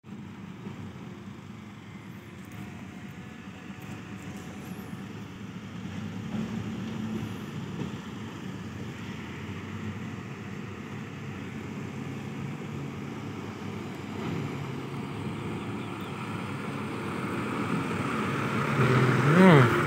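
Diesel engines of Hino dump trucks running as the trucks drive across a dirt site, growing louder as a loaded Hino 500 dump truck passes close near the end. A brief rising and falling sound comes at the loudest point, just before the end.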